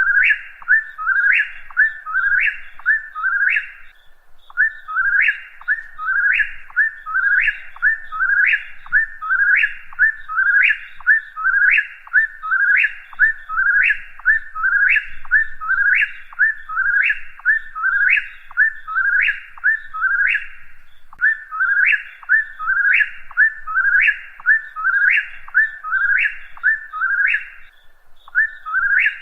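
Whip-poor-will singing its whistled three-note 'whip-poor-will' song over and over, about one phrase a second, with brief pauses about four and twenty-one seconds in.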